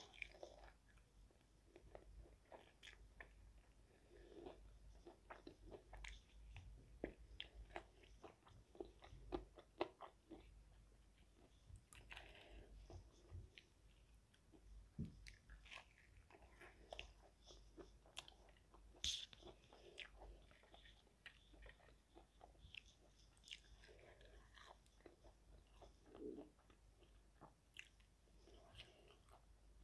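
Faint close-up eating sounds: irregular crisp crunches and chewing as crispy battered fried chicken wings and onion rings are bitten and chewed.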